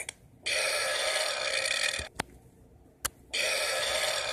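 Two long burps, each lasting about a second and a half, with a short gap and a sharp click between them.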